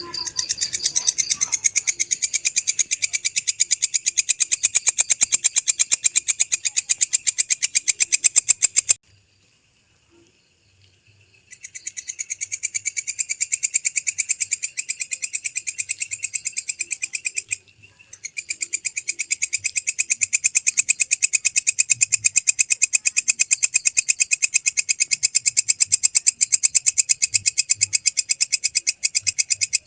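Walang kecek bush cricket singing: a fast, even train of high-pitched chirps that stops for a couple of seconds about nine seconds in, then again briefly about eighteen seconds in.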